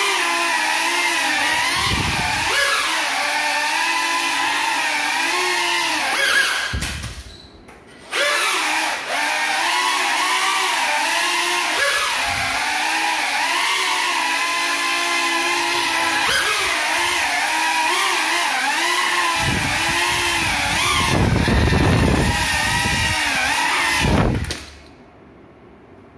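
Small FPV quadcopter's electric motors and propellers, flown on broken props, whining with a pitch that wavers up and down with throttle, dropping out briefly about seven seconds in. Near the end a heavy rumble of prop wash hits the microphone as it comes down close by, and the motors cut off suddenly about a second before the end.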